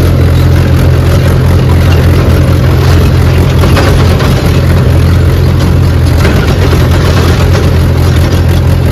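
Tractor's diesel engine running steadily under way, heard from the driver's seat as a loud, even low hum.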